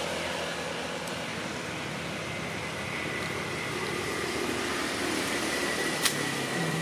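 Steady outdoor background hiss, with a faint engine hum fading away at the start and a single sharp click about six seconds in.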